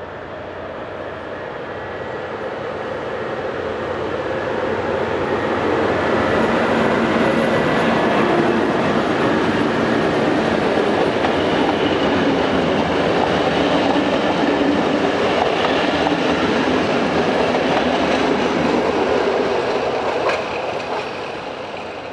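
Soviet-built M62 (class 628) diesel locomotive, with its two-stroke V12 engine, hauling a train of passenger coaches past at close range: engine and wheels clattering over the rail joints, building up over the first few seconds, staying loud while the coaches roll by and fading near the end. A single sharp click about twenty seconds in.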